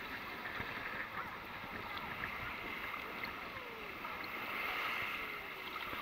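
Small sea waves lapping and sloshing around a camera held at the water's surface, a steady watery hiss.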